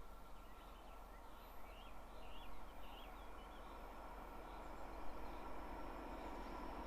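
Birds chirping briefly over a faint, steady outdoor background.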